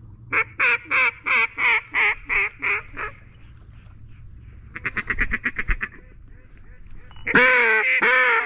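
Duck call blown in a mallard hen routine: a string of about nine quacks that taper off in loudness, then a fast chattering feed call about five seconds in, and loud drawn-out quacks near the end.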